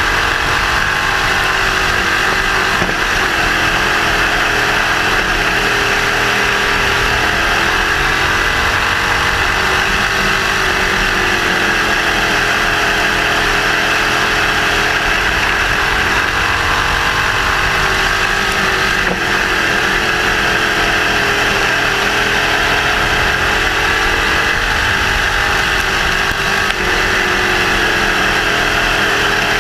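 Crate sprint car's Chevrolet 602 crate V8 running at a moderate, steady pace, its pitch gently rising and falling with the throttle rather than revving hard. Heard loud and close from a camera in the car's cockpit.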